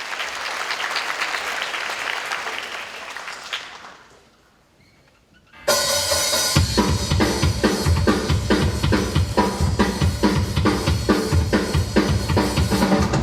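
Audience applauding, dying away after about four seconds into a brief hush. Then a dance track with a heavy, steady drum-kit beat starts abruptly over the hall's sound system.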